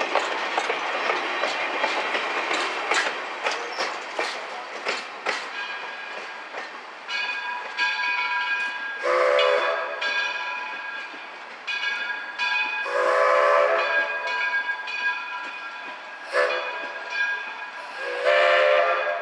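Open passenger coaches of a steam train rolling past, their wheels clicking over the rail joints. As the train moves away, the Edison steam locomotive's bell rings steadily and its steam whistle gives four blasts, long, long, short, long: the grade-crossing signal.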